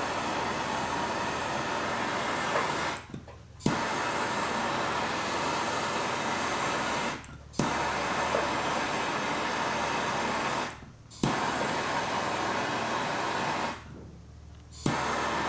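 Steady blowing hiss of the heating tool used to melt body lead on a car panel, cut off and restarted four times, each restart beginning with a sharp click.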